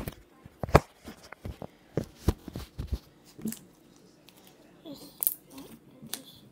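Slime being squeezed and stretched between the hands, giving irregular small clicks and pops, the louder ones in the first three seconds and again about five seconds in.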